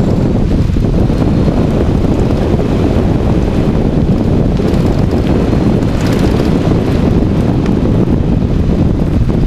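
Steady wind buffeting on the microphone of a camera mounted by an electric bike's front wheel while riding, over a continuous low rumble of the tyre on the road.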